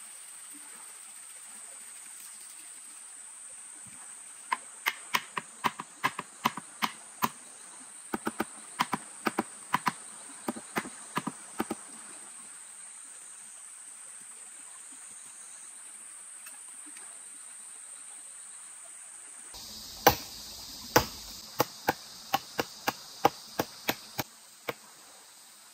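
Runs of sharp chopping strikes, about three a second, in three bursts with pauses between, over a steady high-pitched insect drone. The drone stops abruptly about three-quarters of the way through, just before the last and loudest run of strikes.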